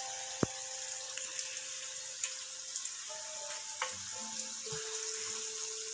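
Sweet potato cubes deep-frying in oil in a wok, giving a steady sizzle, with one sharp click about half a second in.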